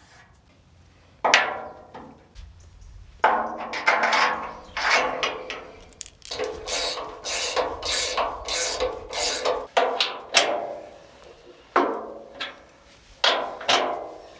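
Hammer blows on metal, about fifteen ringing strikes at an uneven pace, a few in quick succession in the middle, as a chassis bush is driven home in a Land Rover Series 3 chassis.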